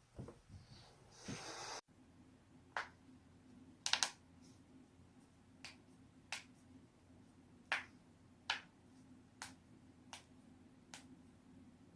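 Human joints cracking: about ten sharp, separate pops spread irregularly, the loudest a quick double pop about four seconds in. Before them, a brief stretch of soft noise cuts off abruptly about two seconds in.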